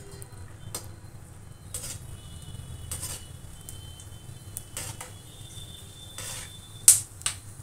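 Melon seeds frying in hot ghee, crackling with sporadic sharp pops, a few louder ones near the end, while a metal perforated skimmer stirs and clinks against the metal kadhai.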